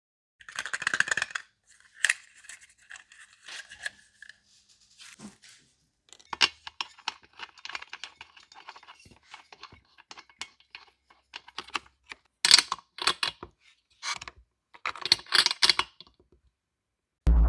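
Hand work at a repair bench on a chainsaw: scattered clicks, scrapes and light metallic taps of tools and small parts being handled, with a short rustling, tearing sound about a second in.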